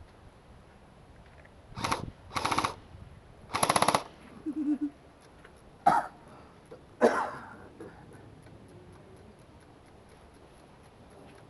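Airsoft electric rifle firing three short full-auto bursts in quick succession, then two single sharp cracks a few seconds later.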